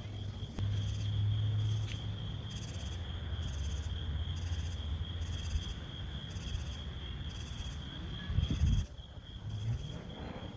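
Insect chorus: a steady high trill with a pulsing chirp repeating about every half second. Under it a low rumble, with a louder low burst about eight seconds in.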